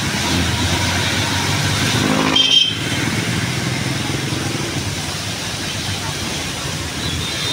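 Street traffic: motor vehicle engines running and tyre noise, with one vehicle passing close and loudest about two and a half seconds in.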